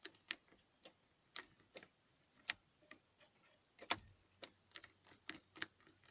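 Faint, irregular clicking of a key being worked in a van's jammed ignition lock: it turns to the ignition position and will not go on to the next one.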